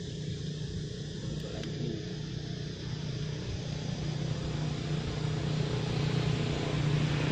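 A steady low engine hum that gets louder, with a growing hiss, over the last couple of seconds.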